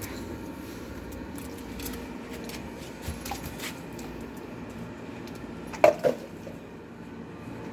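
Small toy washing machine churning with a steady hum and light clicks, then two sharp knocks close together about six seconds in.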